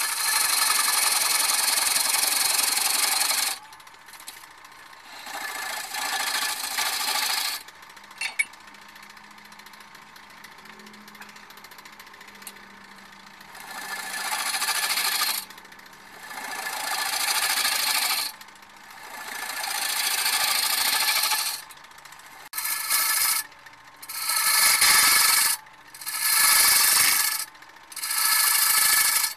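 Turning tool cutting a large spinning red oak bowl blank on a wood lathe: a loud scraping hiss in repeated passes of one to three seconds, about nine in all, shorter and quicker toward the end. In the gaps the lathe runs with a faint hum.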